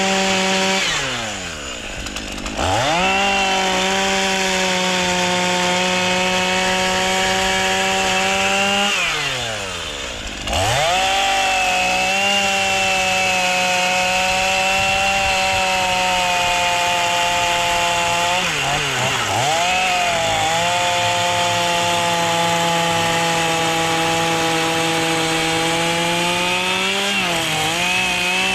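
Two-stroke chainsaw running at full throttle cutting into wood. It drops off to low revs twice, about a second in and about nine seconds in, and revs straight back up each time, with two brief sags in pitch later on as the chain bites.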